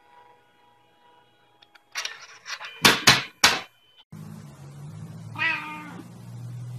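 Three loud, sharp noises in quick succession, then, over a low steady hum, a cat gives a single short meow.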